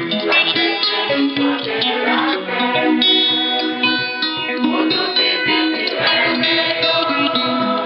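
A choir singing together, accompanied by a strummed acoustic guitar.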